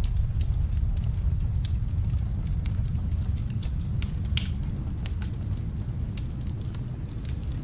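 Wood fire crackling in a fireplace, with scattered irregular pops and one sharper pop about four seconds in, over a steady low rumble.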